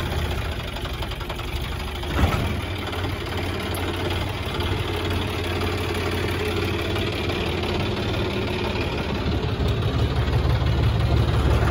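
Tractor engine running steadily under load while the rear wheel churns in loose soil and mud, the tractor stuck and trying to pull free. A single sharp knock comes about two seconds in, and the engine grows louder near the end.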